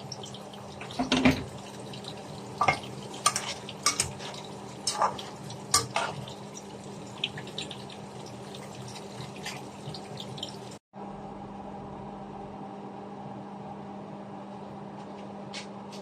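Beef stir-frying in a pan: a spatula clinks and knocks against the pan over the first seven seconds, over a steady frying hiss with a low hum. After that only the steady hiss and hum go on.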